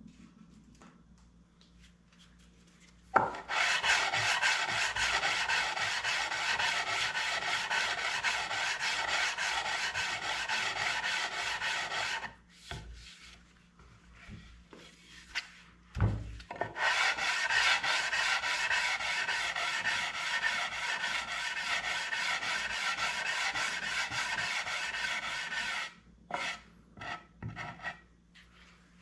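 Wood being worked with an abrasive tool: two long spells of steady scraping, each about nine seconds, with a few short knocks in the pause between them and a few brief strokes near the end.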